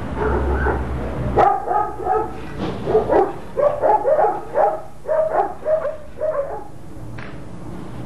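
A dog barking in a quick run of short barks, about three a second, starting about a second and a half in and stopping near the seven-second mark. Before the barking there is a low rumble.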